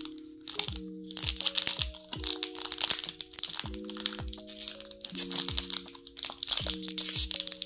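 Plastic candy wrapper crinkling and crackling as fingers tear and peel it open, from about a second in, over soft background music with held chords and a steady beat.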